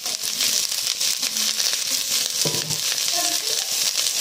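Sliced spring onions frying in hot oil in an aluminium pressure cooker pot: a steady sizzling hiss with fine crackling.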